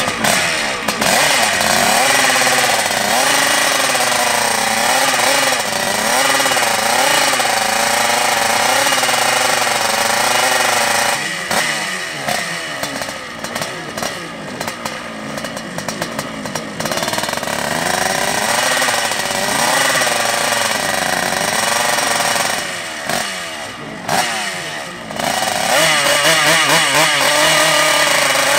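Yamaha RX drag bike's two-stroke single-cylinder engine revved over and over while the bike is held at staging, its pitch rising and falling. It eases off twice, about halfway and again a few seconds before the end, then runs up high again.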